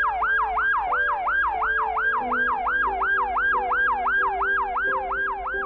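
Ambulance siren on a fast yelp, sweeping up and down about four times a second, over background music with held chords.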